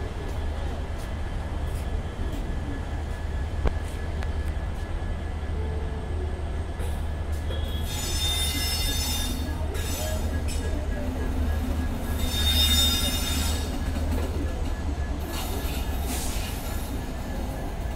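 Steel train wheels squealing shrilly on the rails as a train runs into the station, in three spells, the loudest about two-thirds of the way through, over a steady low rumble.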